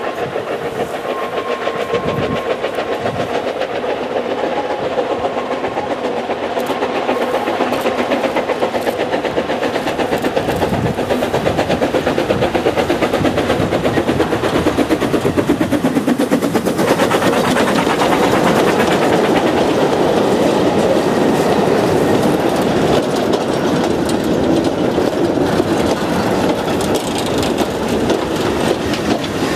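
Narrow-gauge steam locomotive working a train, its rapid, even exhaust beats growing louder through the first half as it draws near, then staying loud. Near the end, slate wagons rattle past close by.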